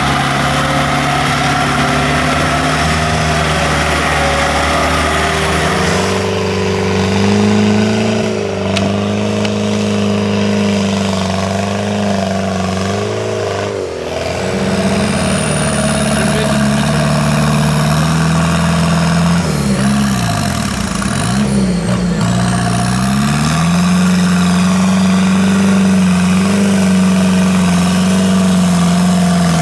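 Off-road 4x4 race vehicle's engine running hard under load, its pitch rising and falling as the throttle is worked. It dips sharply and climbs back twice near the middle, then holds at high revs, with a thin high whine rising and falling along with it.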